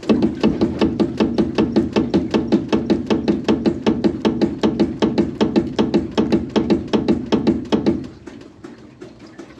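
Rapid, even knocking from the rear suspension of a Nissan NP300 pickup, about five or six knocks a second, stopping near the end. The knock sounds like a bad half-shaft but comes from a worn leaf-spring bushing.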